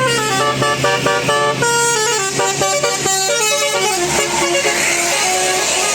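Bus telolet horn, a multi-tone horn playing a quick melody of short stepped notes, which dies away near the end.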